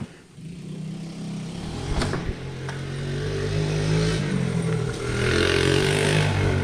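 Small 212 cc single-cylinder engine on an ATV running and getting steadily louder, with some revving and a few knocks and rattles.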